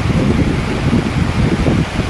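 Wind buffeting the microphone: a continuous low rumble with irregular gusty thumps.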